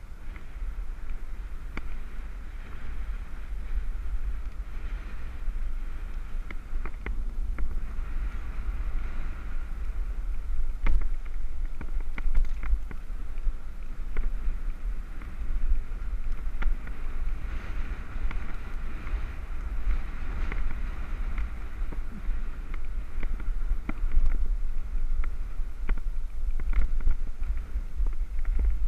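Wind rumbling over a helmet-mounted GoPro on a moving bicycle, a steady low buffeting, with scattered sharp clicks and rattles throughout.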